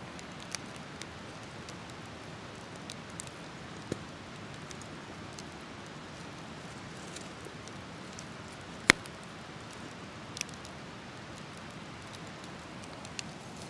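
Campfire crackling: a steady faint hiss with scattered sharp pops, the loudest about nine seconds in.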